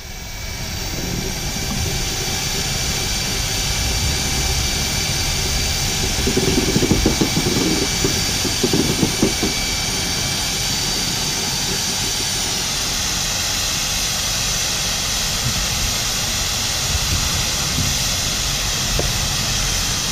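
A machine running steadily with a strong, even hiss, with a few faint high whistling tones held over it.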